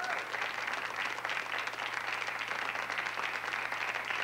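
Studio audience applauding, a steady mass of clapping hands.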